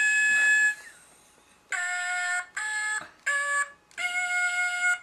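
Fisher-Price Singamajig plush toy singing its nonsense-language song after being squeezed. One held note cuts off just under a second in, and after a short pause come four short sung notes at changing pitches, the last held longer.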